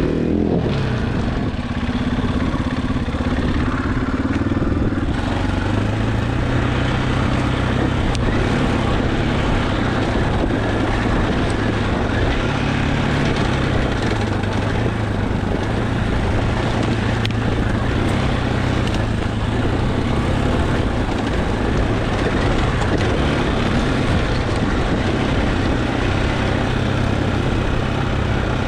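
Husqvarna dirt bike engine running as the bike rides a rough trail. The engine note climbs over the first few seconds and then holds fairly steady, over a constant rushing noise.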